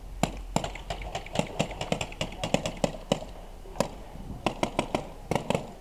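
Airsoft gunfire: a string of sharp, irregular shots, some in quick runs and some spaced apart, about two dozen in all.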